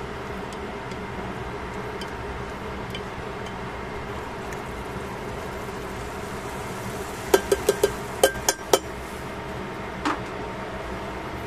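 Metal tongs clicking and clinking against a stainless steel pan. There is a quick run of about seven sharp clicks a little past the middle, then one more knock near the end, over a steady background hum.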